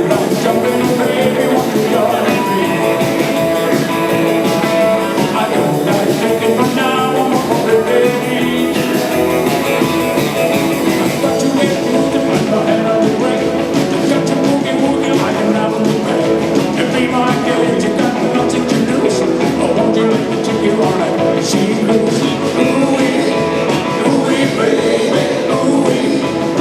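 Fifties-style rock and roll band playing, with a singer and guitar.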